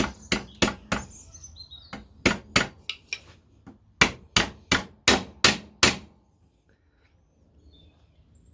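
Hammer blows driving a new pin through the clutch pedal and central shaft of a classic Fiat 500 pedal assembly. The sharp strikes come in three runs at about three a second and stop about six seconds in, with the pin fully driven.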